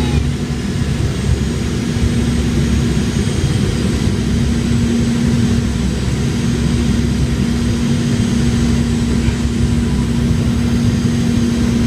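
Cabin noise inside a Boeing 717 on final approach: the steady rush of airflow and the drone of its rear-mounted Rolls-Royce BR715 turbofan engines, with a constant low hum.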